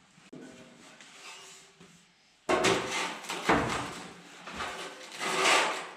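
Handling noise from a sheet-metal panel and a piece of wood: after a quiet start, scraping and knocking start suddenly about two and a half seconds in and go on unevenly.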